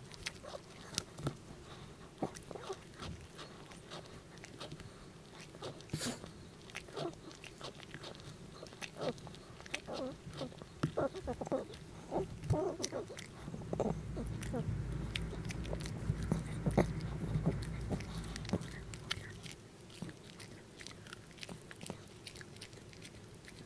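Small dog crunching and gnawing a duck neck bone treat close to the microphone: irregular sharp cracks and crunches of bone, with a low rumble for several seconds in the middle.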